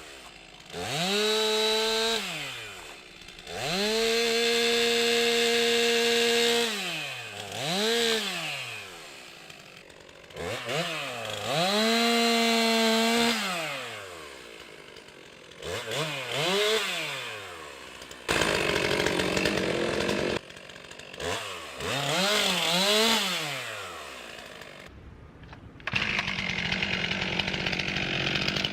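Stihl MS 362 C-M two-stroke chainsaw revved up and let back down to idle about six times, each rev held high for one to three seconds. In the latter part two stretches of steady rushing noise, a couple of seconds each, take over from the engine note.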